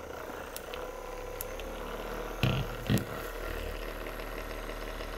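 ADDSFIT percussive massage gun running with a steady motor hum, with two short thumps about two and a half and three seconds in.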